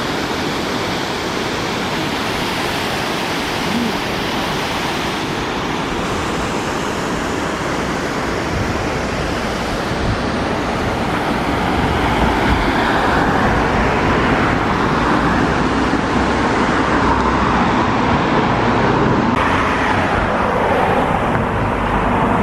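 Steady rushing noise of a waterfall, growing slightly louder about halfway through.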